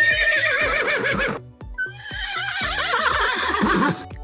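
Two horse whinnies, each lasting about a second and a half with a shaking pitch, over light children's background music with a steady beat.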